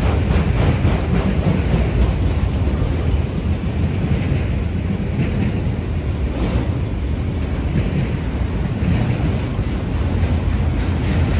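Autorack freight cars rolling past: a steady rumble of steel wheels on rail, with clicks as the wheels pass over rail joints.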